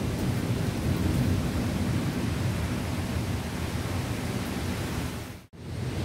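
Heavy thunderstorm downpour: a steady, deep rushing noise that cuts out for a split second near the end.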